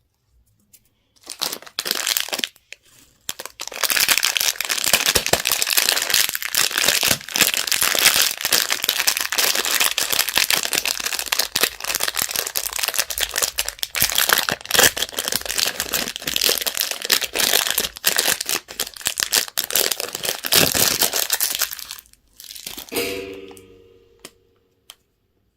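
Candy wrapper being crinkled and torn open by hand: dense crackling for about twenty seconds, followed near the end by a short squeak.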